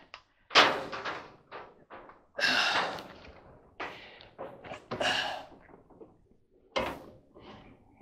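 Knocks, scrapes and rustles from someone handling parts and a work light inside an opened clothes dryer's sheet-metal cabinet. About half a dozen short, separate noises, with quiet gaps between them.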